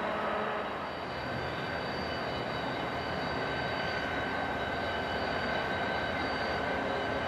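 Diesel freight locomotives running in a rail yard: a steady engine drone with thin, steady high-pitched whines over it. The sound dips and shifts slightly about a second in.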